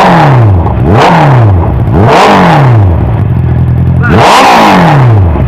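Honda CB650's inline-four engine with an Akrapovič exhaust being revved in four quick throttle blips, each rising sharply and falling back to idle, the last one after a short pause.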